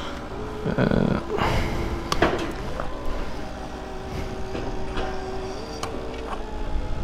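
Yamaha Tracer 7's 689 cc parallel-twin engine running at a steady low speed, its pitch stepping up about six seconds in. A few knocks and a short rush of noise come in the first two seconds.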